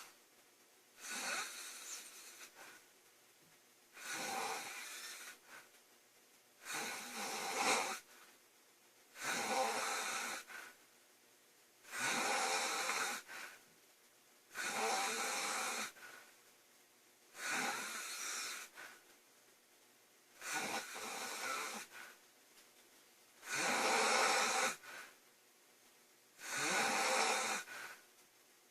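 A woman snoring loudly, about ten snores in a slow, even rhythm roughly three seconds apart.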